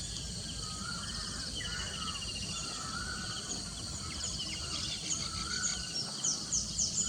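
Outdoor field ambience: insects trilling steadily, with soft wavering bird calls and short high chirps that come more often toward the end, over a low rumbling hiss.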